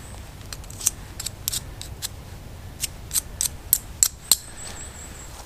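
A series of about a dozen sharp, crisp clicks or snips, irregularly spaced and bunched over about four seconds.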